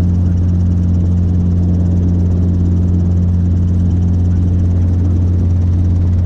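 Robinson R22 helicopter in steady flight, heard from inside the cabin: its engine and rotors make a loud, steady low drone with no change in pitch.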